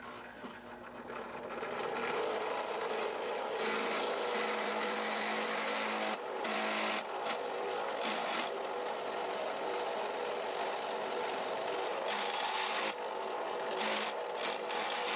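A small power tool running steadily under load, its sound easing briefly a few times.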